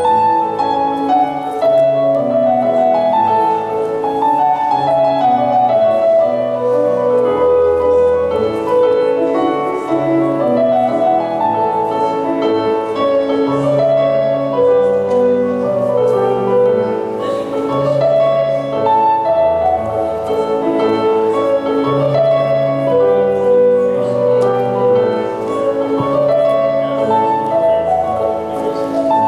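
Instrumental Scottish country dance music: a strathspey tune played steadily, melody over a regular bass.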